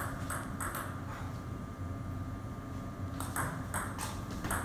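Table tennis ball clicking off the rackets and the table: two knocks near the start, a pause, then a rally from about three seconds in with quick clicks a few tenths of a second apart.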